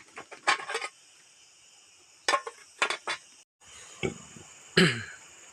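A cooking pot and utensils clinking and knocking in three short clusters, over a steady high-pitched insect chorus.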